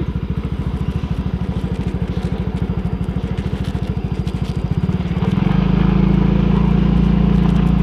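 Small motorcycle engine running with an even pulsing exhaust beat, then revving up about five seconds in, louder and steadier.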